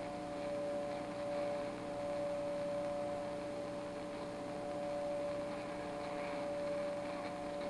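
A tube CB radio receiver's speaker putting out a steady hum of several tones over hiss on an open channel between transmissions, which the operator puts down to local interference.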